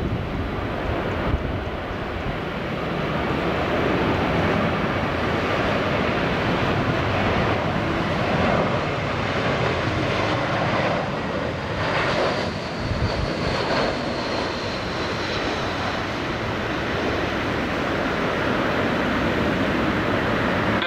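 Jet engines of an Airbus A320 airliner on low final approach, a steady loud rush of engine noise as it passes close overhead. About halfway through, a high whine falls slightly in pitch as the aircraft goes by.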